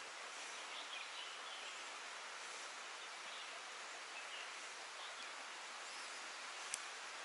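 Outdoor jungle-creek ambience: a steady hiss with faint bird chirps scattered through it, and one sharp click about six and a half seconds in.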